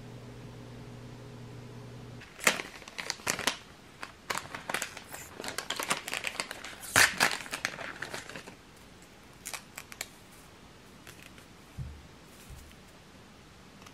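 Paper tea-bag wrapper being torn open and crinkled by hand: a run of sharp rustles and rips, loudest about seven seconds in. A few light ticks and a soft thump follow. A steady low hum runs underneath and cuts off about two seconds in.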